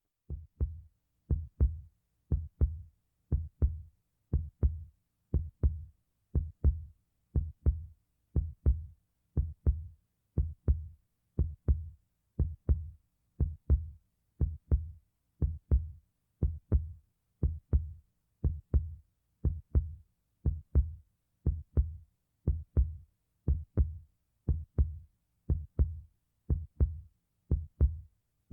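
Heartbeat sound effect: steady lub-dub double thumps, about one heartbeat a second, each a low thud with a short click on top and silence between beats.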